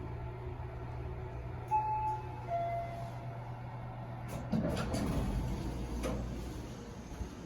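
Toshiba Elemate Cerebrum elevator's arrival chime: two clear tones, the second lower, a little under a second apart, over a steady machinery hum. About two seconds later the sliding doors move with a rushing rumble and a few clacks.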